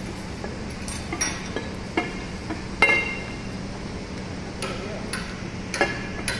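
Metal clinks and knocks as a cast rocker (tappet) cover is set down and shifted into place on a BEML D155 dozer engine's cylinder head: a string of short ringing knocks, the loudest about three seconds in, over a steady low hum.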